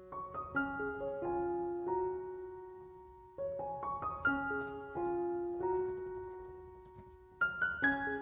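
Solo piano music: a slow, gentle instrumental, with single notes and chords ringing and fading, a new phrase starting about a third of the way in and another near the end.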